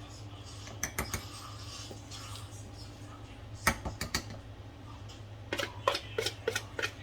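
Kitchen utensils knocking against dishes: a few separate clinks, then a run of quick, regular strokes near the end, about three to four a second.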